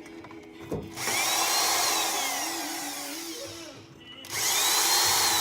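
A power drill driving screws out of a microwave's casing, run twice. Each time the motor's whine rises and then falls away. The first run starts about a second in, and the second about four seconds in.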